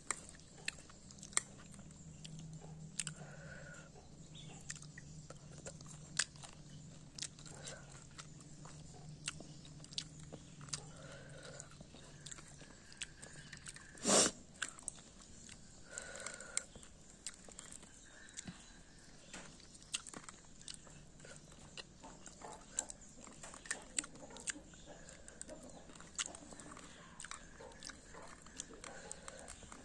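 A person eating close to the microphone: chewing and crunching bites, with many small sharp clicks and one louder crunch about halfway through.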